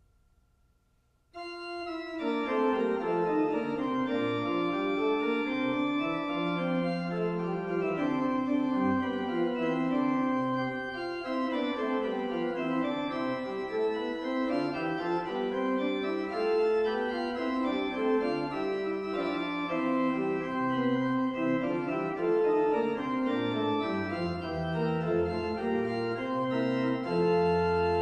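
Church organ playing sustained chords with moving lines in the bass and inner voices, starting about a second and a half in after near silence.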